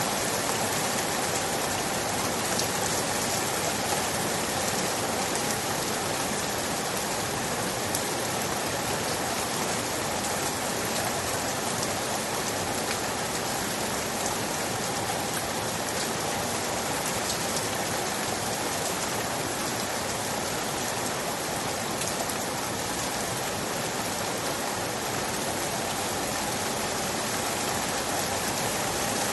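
Steady rain falling and pattering on a surface, an even hiss with fine drop ticks throughout.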